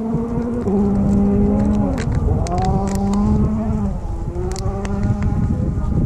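Rally car engine at full effort, drawing nearer, its note stepping down and climbing again several times as it shifts through the gears, with a few sharp pops.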